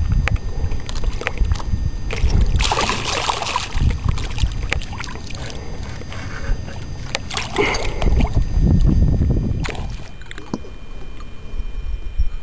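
Wind rumbling on the microphone and water lapping at a small boat on choppy water, with two short bursts of louder rushing noise, about two and seven seconds in, and scattered small clicks. The sound drops quieter about ten seconds in.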